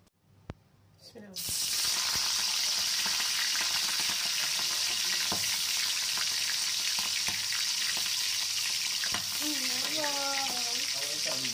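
Hot oil in a wok bursts into a loud sizzle about a second in as a whole stuffed squid goes in, then fries steadily with many small crackles and pops.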